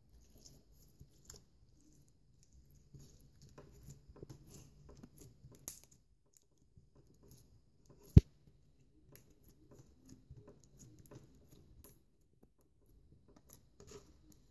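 Copper glitter slime being kneaded and pressed by hand on a wooden table: faint sticky clicks and squelches, with one sharp knock about eight seconds in.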